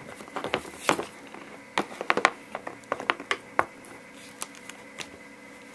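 Hammer tapping a punch to drift a Williams fiber-optic front sight into the dovetail of a Ruger 10/22 barrel: about fifteen sharp metal taps at uneven spacing, some in quick clusters.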